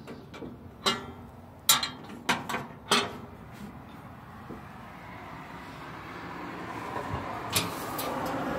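A few sharp metal clanks and rattles from a steel charcoal grill's side door and coil-spring handle being handled, packed into the first three seconds, then a steady hiss that grows louder toward the end.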